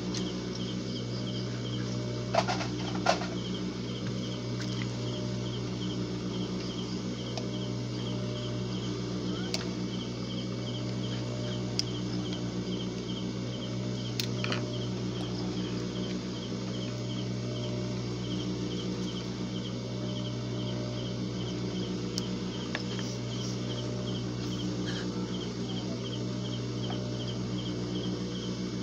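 Steady low electrical hum with a cricket chirping in a regular rhythm, about twice a second. A few sharp clicks from handling scissors and fabric, two of them close together about two and a half seconds in.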